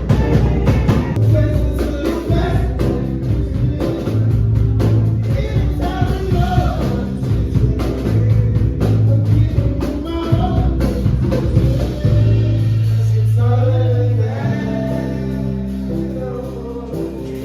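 Loud music with a voice singing over a heavy bass-driven beat.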